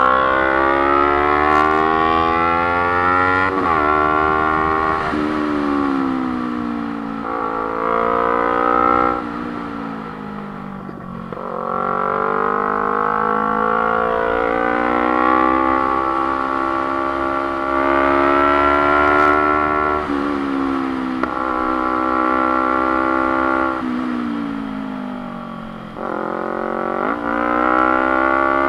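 Motorcycle engine pulling up through the revs and shifting gear: its pitch climbs, drops suddenly at each change, then climbs again, several times over. Twice it eases off into a slower falling note as the throttle is rolled off, over a steady low rumble of wind and road.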